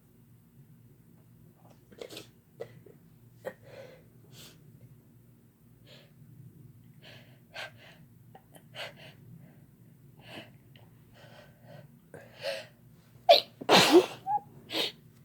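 A person's short breaths and sniffs for several seconds, then a loud sneeze near the end followed by two smaller ones. The sneezing is brought on by chhinkni, a herbal sneezing powder that is snuffed up the nose.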